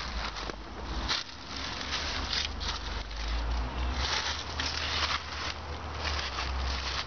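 Footsteps crunching through dry fallen leaves and gravel in irregular steps, over a steady low rumble.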